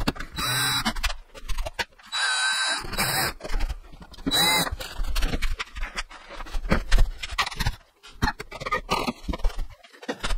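Cordless drill driving screws into a shelf bracket in three short bursts, the motor's whine rising and falling with each. After that come irregular knocks and scraping as a wooden shelf board is handled.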